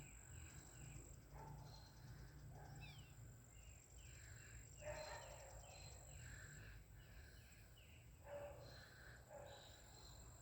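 Faint birdsong: runs of short, quickly falling chirps, repeated several times, over a steady thin high-pitched whine.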